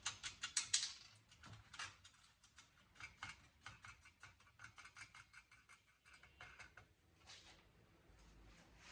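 Quick runs of even clicks, about seven a second, with scattered single clicks between, as the RF connectors are worked off a cable box's board with a hand tool.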